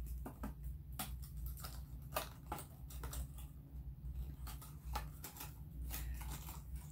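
Clear plastic fishing-lure package being handled and worked open: a string of small crinkles, clicks and ticks at uneven spacing.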